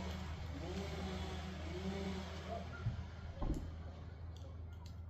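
An engine running, its pitch rising and falling several times as it is revved and eased off, over a steady low hum. Two sharp thumps come just past the middle.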